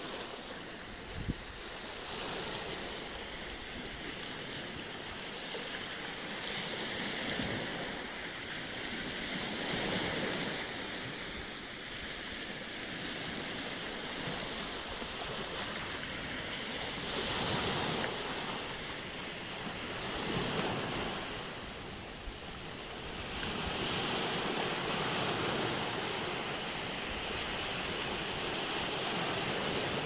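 Small sea waves breaking and washing over a pebble and rock beach, the surf swelling every few seconds; a brief thump about a second in.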